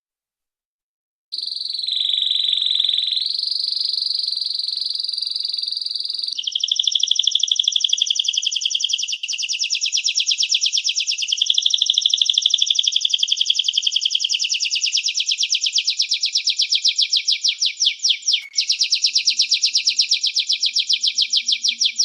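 Songbird singing: a steady high whistled note that steps up in pitch, then from about six seconds in a long, fast trill of repeated notes, broken briefly near the end.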